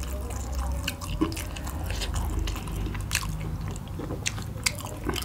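Close-up eating sounds: scattered small wet clicks and smacks of two people chewing and picking at food with their fingers, over a low steady hum.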